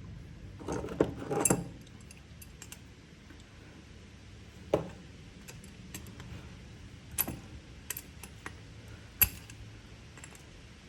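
Metal hand tools and small parts clinking and clattering during work on a carburetor: a short burst of clatter about a second in, then single sharp clicks every second or two.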